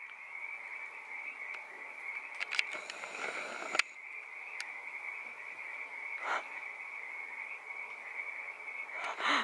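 Refrigerator door-open alarm sounding a steady, high electronic tone, the sign of a fridge door left open, with a few faint knocks.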